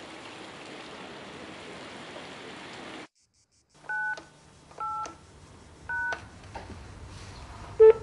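Steady outdoor background noise that cuts off after about three seconds. Then a payphone's touch-tone keypad dialing: three short beeps about a second apart, over a faint hum on the line, and a brief louder tone near the end.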